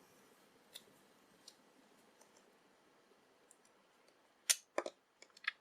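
Faint metallic clicks of a thin padlock shim being pushed down into the gap beside a padlock's shackle, then a quick cluster of sharper clicks near the end as the shim frees the shackle and the lock opens.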